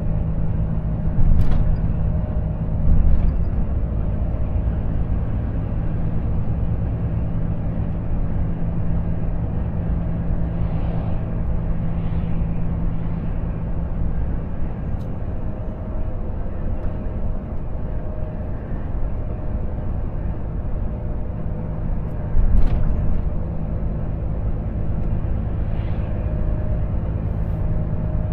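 Volvo FH 460 truck's 13-litre six-cylinder diesel running steadily at cruising speed with tyre and road noise, heard inside the cab. A few short thumps come through, twice near the start and the loudest about 22 seconds in.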